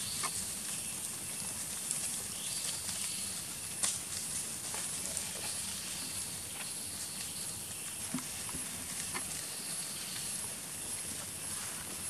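Outdoor ambience: a steady high-pitched insect drone, with scattered soft clicks and rustles of macaques moving over dry leaf litter and a sharper click about four seconds in.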